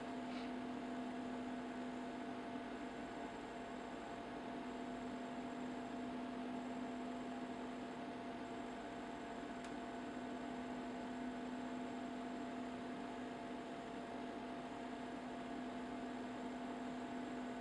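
Faint, steady electrical hum with a few constant tones and no change in level.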